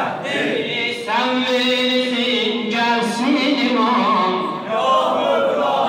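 A man singing an unaccompanied devotional eulogy in a chant-like style, with long held notes that bend and waver in pitch.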